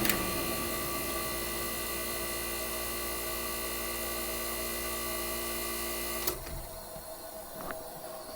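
1965 Fedders Weather Wheel 12,000 BTU window air conditioner being shut down. A switch click at the start, then the unit hums steadily for about six seconds and cuts off suddenly with another click, leaving a faint hiss.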